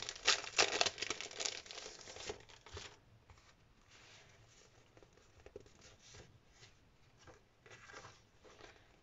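Clear plastic cellophane sleeve crinkling loudly as it is opened and a small pad of paper is pulled out, for about three seconds. After that, only soft, occasional rustles of the paper sheets being handled.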